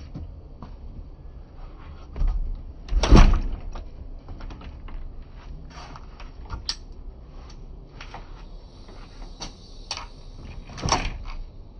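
A front door pulled shut with a loud knock about three seconds in, then keys jingling and clicking as the knob lock is worked, and a storm door shutting with a second knock near the end.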